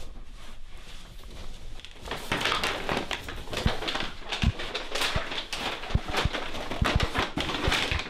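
Paper shopping bag rustling and crinkling as it is handled and unpacked, starting about two seconds in, with a few soft thumps in between.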